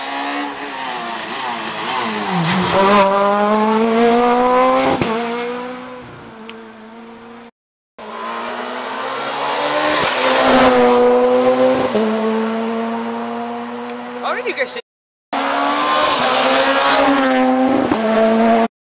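Peugeot 207 S2000 rally cars' naturally aspirated two-litre four-cylinder engines revving hard and shifting up and down through the gears as they pass at speed, pitch repeatedly climbing and dropping. Three separate pass-bys, cut apart by two brief gaps of silence.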